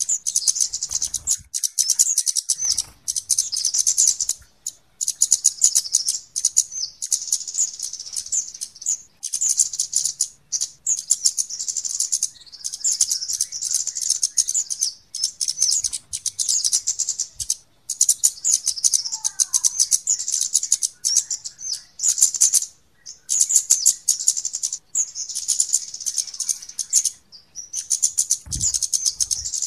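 Flowerpeckers (kemade / cabean) calling in fast, dry, high-pitched chip runs that sound almost like a shaken rattle. The runs last a few seconds each and are broken by short pauses. This is a bird lure call.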